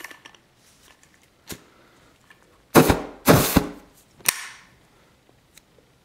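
Three short spray bursts from an Axe aerosol can fired through a lit lighter flame as a homemade flamethrower, each a sudden hissing whoosh under half a second long, a little under three seconds in; a couple of faint clicks come before.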